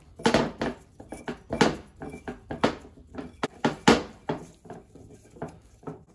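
Hand tap in a T-handle wrench being turned in a bolt hole of a tractor front-axle portal housing, chasing the threads: a string of irregular metallic clicks and scrapes, about two a second, thinning out near the end.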